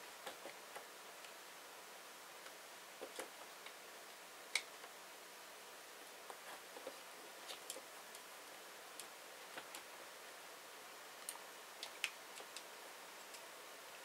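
Faint, scattered clicks and ticks of small plastic and metal parts being handled on an RC crawler's axle as the plastic differential cover is worked off, over a steady low hiss. The sharpest clicks come about four and a half seconds in and again about twelve seconds in.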